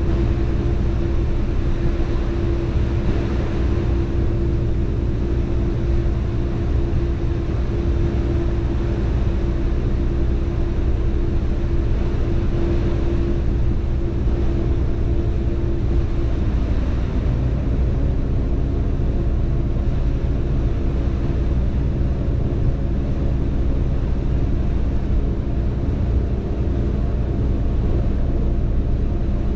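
Car ferry's engines droning steadily, a low rumble with a humming tone over it; the hum drops out a little past halfway and the engine note shifts slightly.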